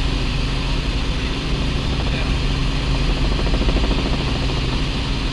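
Light helicopter's engine and main rotor heard from inside the cabin in cruise: a steady, unchanging drone with a strong low hum.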